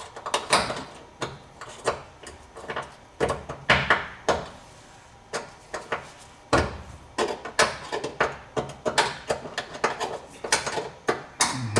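Irregular clanks and knocks of metal hand tools against metal, several a second with short pauses between runs.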